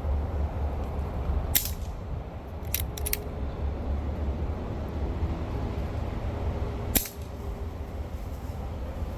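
A Brocock Atomic XR PCP air rifle firing once about seven seconds in, a single sharp crack, after a few short sharp clicks in the first three seconds. A steady low rumble runs underneath.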